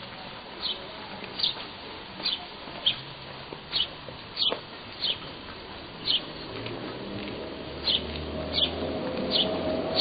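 A small bird chirping over and over, short high falling notes a little under a second apart, over a low background rumble that grows louder near the end.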